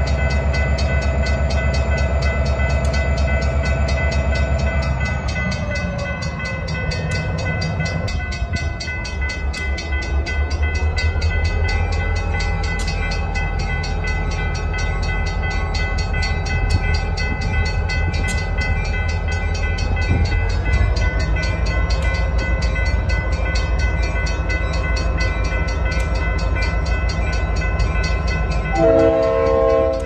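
Norfolk Southern diesel-electric freight locomotive's engine running with a steady, rhythmic drone as the train starts to creep forward. Its pitch drops about five seconds in and rises again later, and a short horn blast sounds near the end.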